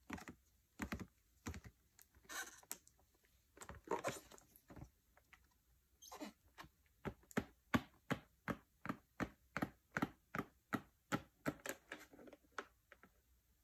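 Gloved fingers tapping and handling a cardboard retail box with a clear plastic window, in crisp clicks. A few short scraping rustles come in the first half, then a quick, even run of taps about three a second.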